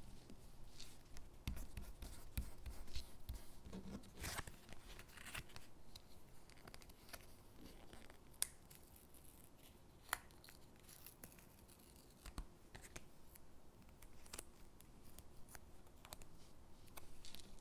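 Stickers being peeled off their backing sheet and pressed onto paper gingerbread cutouts: soft paper rustling and peeling, with scattered light clicks and taps.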